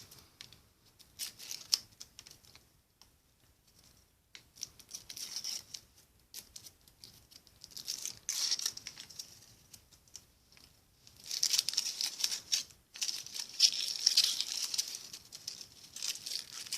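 Foil wrapper of a Kinder Surprise chocolate egg being torn and crinkled off by hand, in irregular bursts of crackling rustle that are busiest and loudest over the last few seconds.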